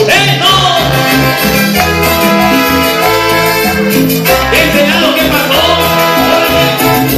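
Live band playing loud Latin dance music, horns over a steady repeating bass line, with a man singing.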